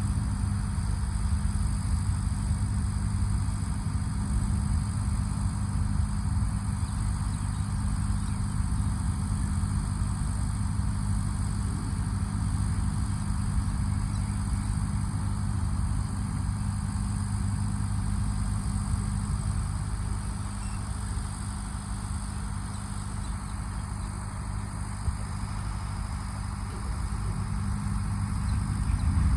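Goods vehicle's engine running with a steady low drone. It eases off slightly about two-thirds of the way through and builds again near the end.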